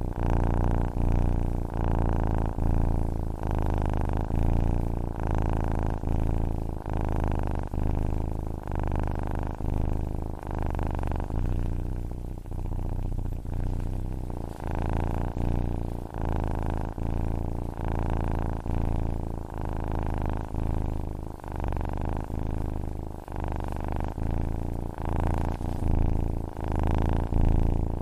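Domestic cat purring steadily, the low rumble swelling and easing about once a second as it breathes in and out.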